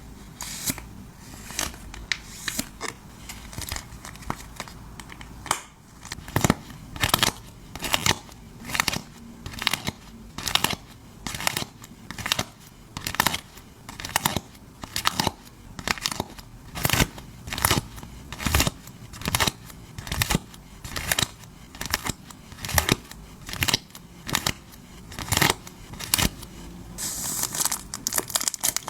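Close-up handling of photocard packing materials: a long run of crisp, evenly spaced strokes, about two a second, with a denser crinkling rustle near the end.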